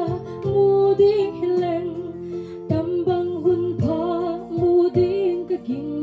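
A woman sings a slow song into a microphone, her held notes wavering with vibrato, over steady instrumental accompaniment.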